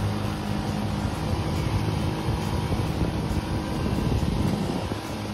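An off-road buggy's engine running at a steady pitch while driving along a dirt track, under a steady rushing noise.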